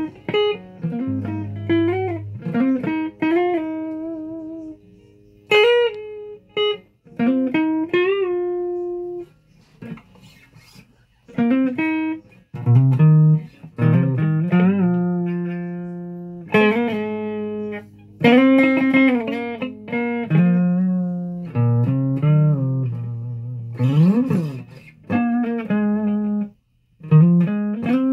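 Guitar played solo: single picked notes and short phrases, with notes bent and slid up and down in pitch and brief pauses between phrases.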